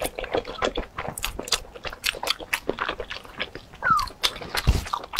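Close-miked mouth sounds of eating thick spicy stir-fried rice noodles: wet chewing and smacking in a quick, irregular run of small clicks.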